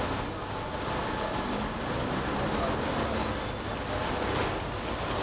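Busy city road traffic: vehicle engines running and cars moving past, a steady rumble and hiss.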